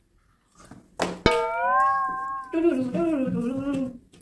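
A sharp click, then a drawn-out, pitched wailing call in two parts: a high held note, then a lower note that wavers and sinks before fading.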